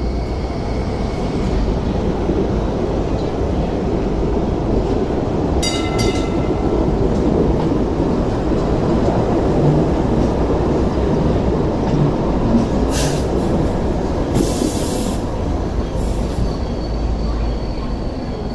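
A Hong Kong Light Rail train pulling out and running past on curved track, its wheels and motors rumbling steadily. A brief high-pitched wheel squeal comes about six seconds in.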